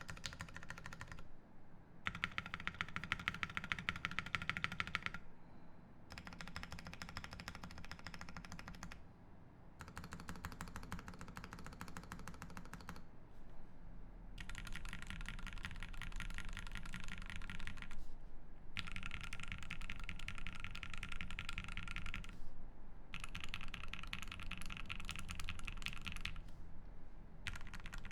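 Fast typing on a Voice65 mechanical keyboard with lubed Gateron Ink Black linear switches, an aluminium plate and GMK keycaps. The keys clatter rapidly in stretches of a few seconds, broken by short pauses.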